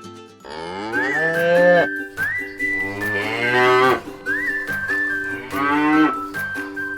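Cows mooing: three long moos one after another, with a whistled tune faintly behind them.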